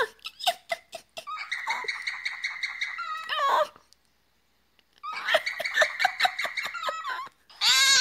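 Cockatiel singing: quick runs of short repeated chirps over a steady whistled note, with falling whistles, broken by about a second of silence midway. Near the end a louder, harsher bird call cuts in.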